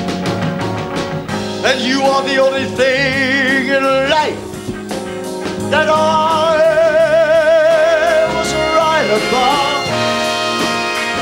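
A man singing long held notes with a wide, wavering vibrato over a band accompaniment. One high held note comes about two seconds in, and a longer one runs from about six to nine seconds.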